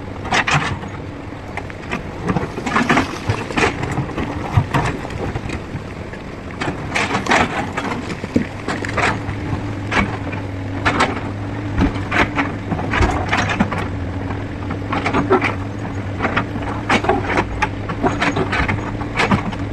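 Heavy machine's diesel engine running steadily, likely an excavator, with frequent sharp knocks and clatter over it throughout.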